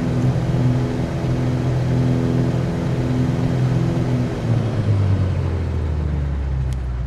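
Cessna 182Q's six-cylinder Continental O-470 engine and propeller droning steadily, then dropping in pitch and quieting in the upper range about four and a half seconds in as power is reduced in the landing pattern.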